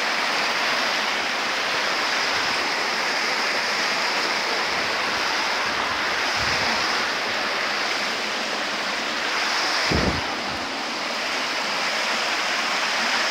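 Creek water rushing over rock slabs in a small cascade, a steady loud hiss. A brief low thump about ten seconds in.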